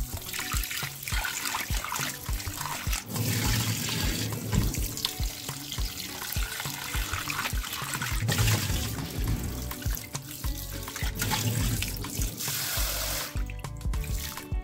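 Tap water running into a metal bowl in a stainless steel sink while a hand swishes and rinses tamarind in it; the running water stops about a second before the end. Background music with a steady beat plays underneath.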